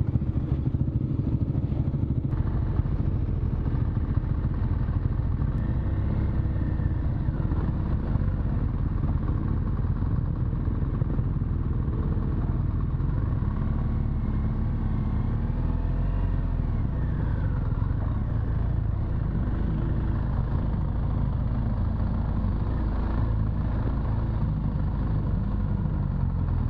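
BMW R1200 GS Adventure's boxer-twin engine running at low speed on board, its note rising and falling a little with the throttle.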